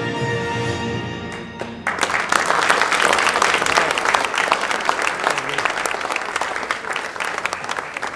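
Music from a short video fades out about a second and a half in, then a room full of people applauds.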